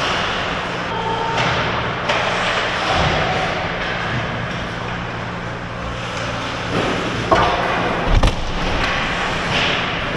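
Ice hockey play on an indoor rink: skates scraping the ice over a steady low hum, with a few sharp stick-and-puck cracks about seven and eight seconds in.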